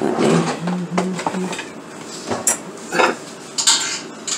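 Metal cookware and utensils clattering: pots, lids and spoons knocking together in several sharp clinks and knocks.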